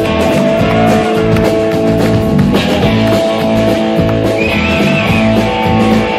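Live blues band playing: electric guitar, electric bass and drums. About four and a half seconds in, a high guitar note wavers up and down.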